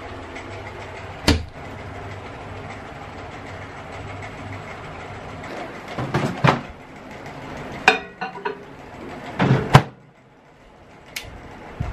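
Kitchen handling noise: steel plates, a bowl and a cabinet knocking and clattering on the counter in several separate knocks, over a steady low hum that drops away about ten seconds in.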